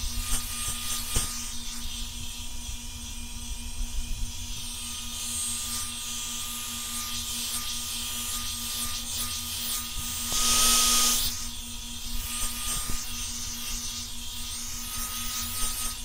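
Revlon One-Step hot-air brush (hair dryer and volumizer) running steadily: a motor hum with a steady whine and the hiss of blowing air as it is drawn through the hair. About ten seconds in the air hiss swells louder for about a second.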